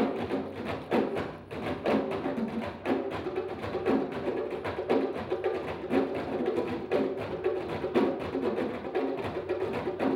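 Ensemble of djembe hand drums played together in a steady, driving rhythm of many strokes, with a larger barrel drum in the group.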